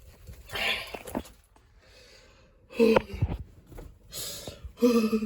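A person's breathy gasps and short wordless voice sounds, in several separate bursts with gaps between them.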